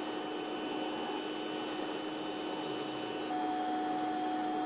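TIG welding arc running steadily on chrome-moly steel tube during a root pass: an even hiss with a constant hum tone, which shifts slightly higher about three seconds in.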